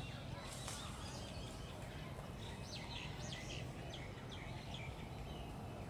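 Faint bird chirps, a quick run of short high notes about three seconds in, over a steady low background rumble.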